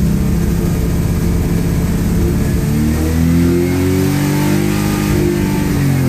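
Subaru EJ257/EJ20K hybrid flat-four engine being revved: its pitch climbs from about 4,000 rpm to near 5,800 rpm and holds high, then starts to fall away near the end.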